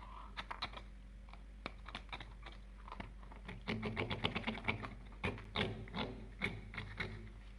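A series of light clicks and taps, scattered at first and then a quick run of them from about halfway through, over a steady low hum.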